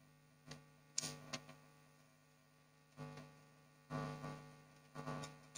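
Quiet eating of instant noodles with wooden chopsticks: a few faint clicks and short slurping, chewing sounds, the loudest about four seconds in as a mouthful goes in, over a steady low electrical hum.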